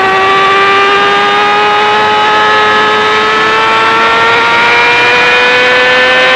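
2018 Yamaha R6 inline-four with an Akrapovic full-system exhaust, pulling hard at high revs; its loud exhaust note climbs slowly and steadily in pitch.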